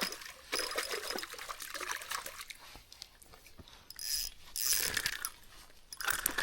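Water splashing and sloshing in irregular bursts, with short quieter gaps.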